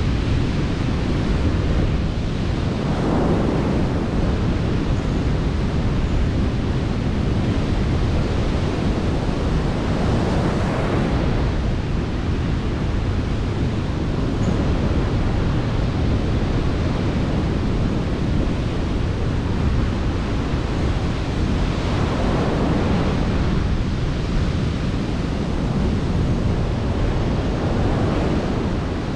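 Rough sea surf breaking on a sandy shore, a steady wash with waves swelling up a few times, mixed with wind rumbling on the microphone.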